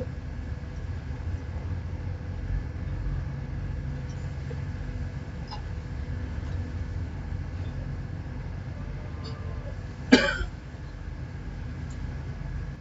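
A fishing boat's engine running steadily with a low rumble, and one short loud cough about ten seconds in.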